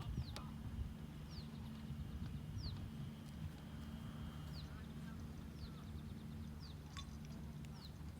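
A bird repeating short, high, falling chirps about once a second over a low steady hum.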